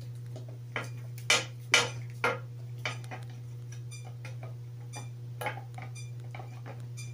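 Dog gnawing a shed elk antler on a concrete floor: hard clacks and scrapes of teeth on antler and antler knocking the floor, a quick run of loud ones between about one and three seconds in, then sparser. A steady low hum runs underneath.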